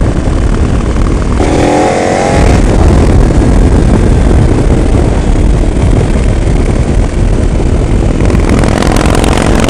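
Motorcycle riding at road speed, wind rushing hard over the helmet microphone under the engine's drone. About a second and a half in, the engine revs up for about a second as the bike accelerates.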